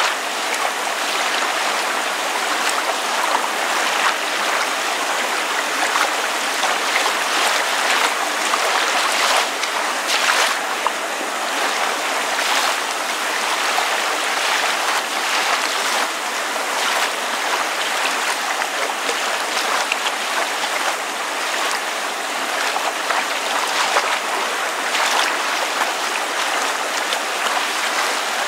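Gentle water lapping with rain falling steadily: an even hiss with soft, irregular splashes.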